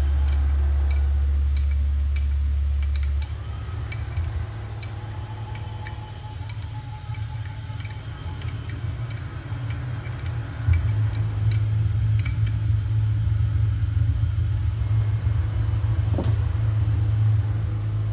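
Ratchet wrench clicking in scattered single ticks as it works on the engine. Under it runs a loud low hum that steps up in pitch about three seconds in and grows louder about eleven seconds in.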